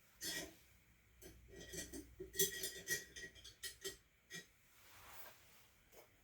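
Light clinks and taps of tea-ceremony utensils being handled, a quick series of sharp strikes, some with a brief metallic ring, thinning out after about four seconds.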